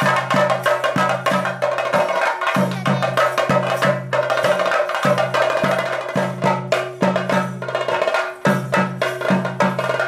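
Chenda drums played in a fast, dense rhythm as theyyam accompaniment, with a steady held tone underneath.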